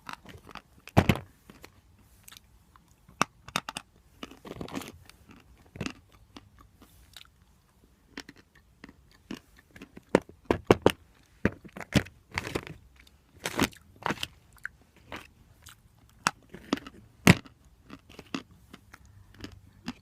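A person biting and chewing pieces of natural chalk close to the microphone: irregular dry crunches and snaps, some loud, between quieter stretches of chewing.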